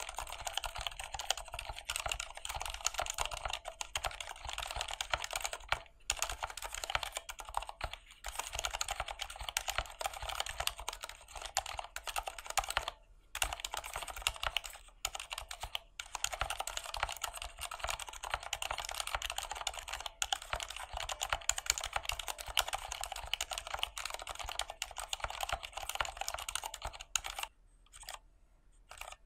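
Typing on a Durgod Venus 60% mechanical keyboard with Cherry MX Silent Red linear switches: a rapid, continuous patter of keystrokes with a few short pauses, dropping to a handful of single presses near the end.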